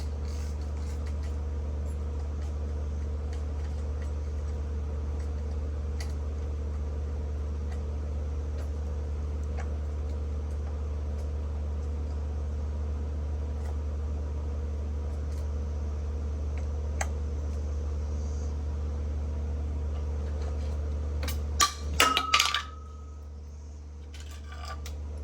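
A steady low hum with a few faint ticks. Near the end comes a brief clatter of small metal parts with a short ring, after which the hum drops away.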